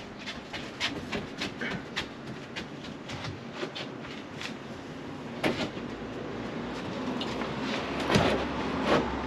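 A run of sharp clicks, two or three a second, from a hand tool working the edge of a vinyl-covered panel, then a few louder knocks and bumps as a wooden wall panel is handled and pushed into place.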